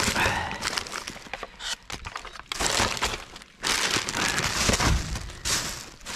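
Rubbish being rummaged and shifted about in a dumpster: bags and packaging crinkling and items knocking and clattering against each other in a series of bursts.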